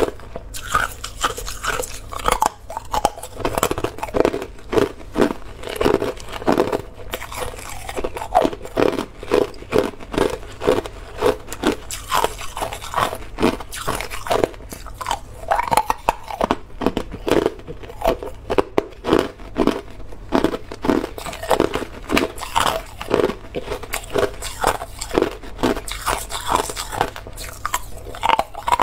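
Hard clear ice chunks being bitten and chewed, a steady run of sharp crunches and cracks of ice breaking between the teeth.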